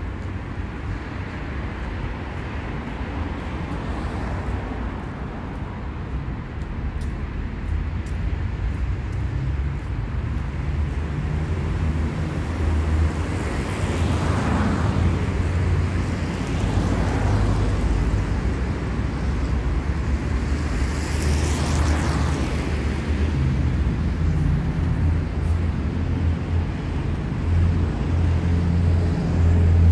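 City street traffic: a steady low rumble of engines that grows louder partway through, with three or so cars passing close by around the middle.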